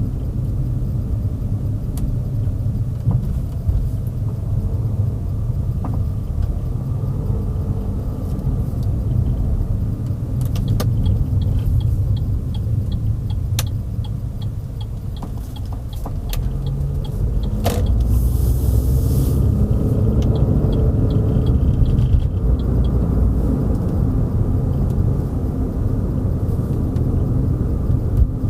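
Steady low road and engine rumble of a car being driven, heard from inside. Two stretches of light, regular ticking come in around the middle.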